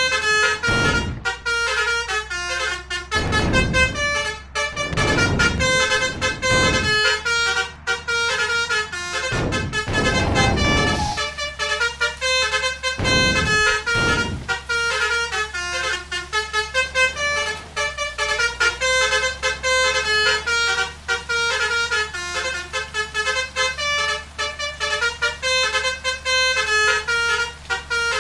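Bus 'telolet' musical horns, Basuri multi-tone trumpet horns, playing quick melodies note after note over a steady low engine hum. Several louder noisy blasts come in the first half.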